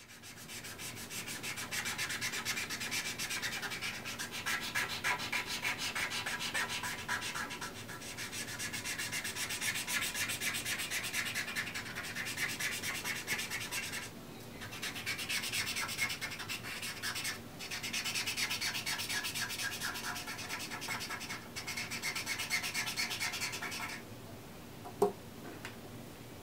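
A paint marker's tip scrubbing quickly back and forth on canvas, coloring in an area, in long scratchy stretches with brief pauses. The scrubbing eases off near the end and a single sharp tap follows.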